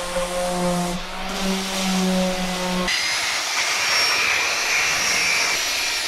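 Electric orbital sander running on old wood, a steady motor hum over the hiss of sandpaper. About three seconds in the sound changes abruptly to a hissier sanding noise with a thin high whine.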